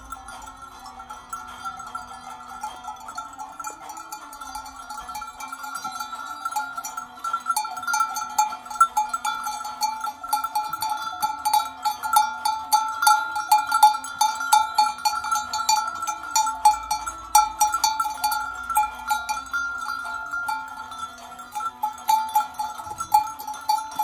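Many small metal bells clanking continuously, the jangling growing busier and louder about seven seconds in, like the bells worn by a herd of livestock.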